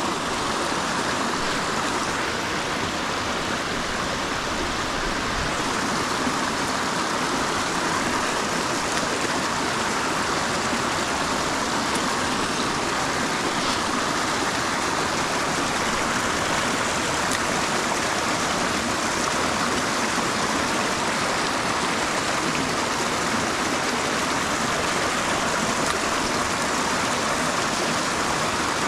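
Stream water rushing, a steady, unchanging flow.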